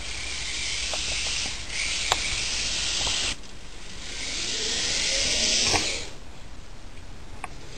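Small electric RC car motor and gears whirring in two bursts, the second rising in pitch as it speeds up, with a few sharp clicks.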